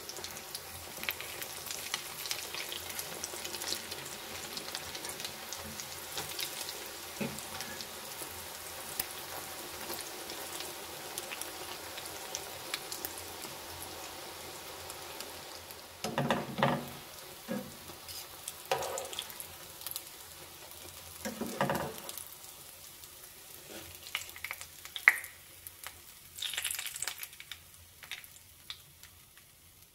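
Egg-dipped bread slices shallow-frying in hot oil in a pan, a steady crackling sizzle. From about halfway, a few louder knocks and scrapes of cooking utensils against the pan come in, and the sizzle fades toward the end.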